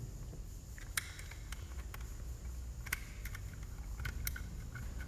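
Scattered light clicks and ticks of hands working small parts on a stripped-down STIHL FS 220 brushcutter engine, pulling a wire loose from the crankcase. A few sharper clicks stand out among them, about a second in and again around three and four seconds.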